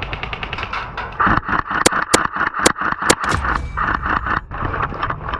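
Tokyo Marui recoil-system AK74MN airsoft electric gun firing in rapid full-auto bursts: a fast, even clatter of the gearbox cycling and its recoil shock. About two to three seconds in come five sharper, louder cracks.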